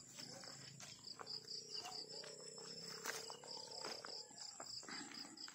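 A faint insect trill, cricket-like: a high, rapidly pulsing chirp that runs almost without a break, with soft footsteps on grass and dirt.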